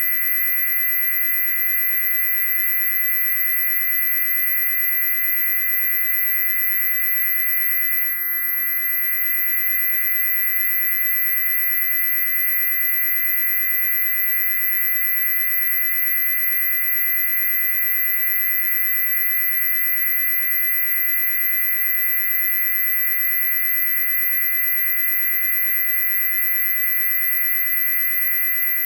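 Loud, steady electronic high-pitched noise: a piercing very high whine layered over a cluster of lower steady tones, unbroken and unchanging.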